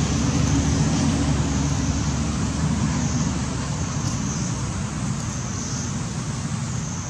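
Steady outdoor background noise: a deep continuous rumble that eases slightly partway through, under a steady high hiss.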